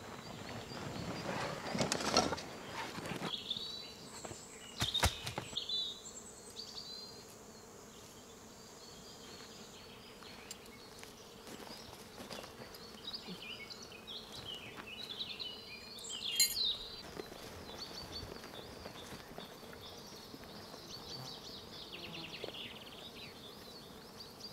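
Forest ambience: small birds chirping and an insect buzzing, broken by a few short bursts of rustling and knocking from camp gear being handled, the loudest about two and five seconds in.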